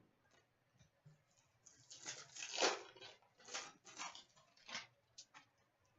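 Trading cards being handled: a series of faint, short rustling and sliding sounds as cards are shuffled and flipped.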